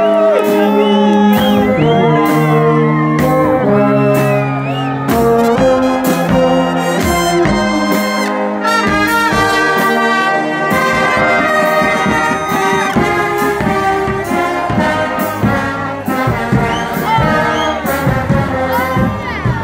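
Street brass band of tubas, euphoniums and trombones playing an upbeat dance-pop medley over a steady drum beat, with the crowd's voices singing along.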